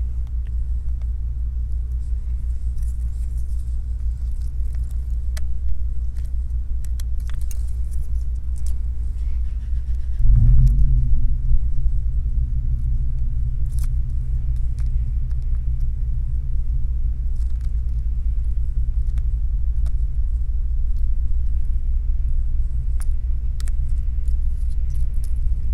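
A steady low background rumble, a little louder from about ten seconds in, with a few faint small ticks and scrapes as a metal pry tool works the tiny ear-speaker flex cable and bracket loose from a phone screen frame.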